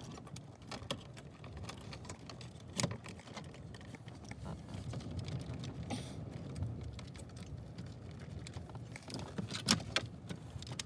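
Plastic wiring-harness connectors being pinched and unplugged from the back of a car's factory stereo head unit: scattered small clicks and rattles, with a sharper click about three seconds in and a few more near the end.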